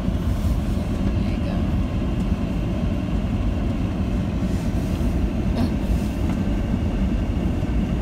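Steady low rumble of a Jeep driving on a snow-covered road, heard from inside the cabin: engine and road noise.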